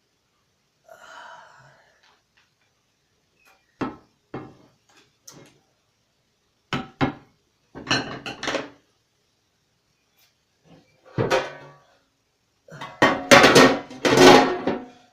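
Cookware clattering as crab legs are laid on top of seafood in a pot: a few sharp knocks and clicks, then louder rattling and clatter near the end.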